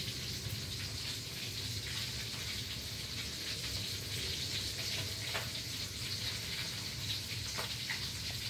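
Steady background hiss with a low hum underneath and a few faint ticks; no meowing.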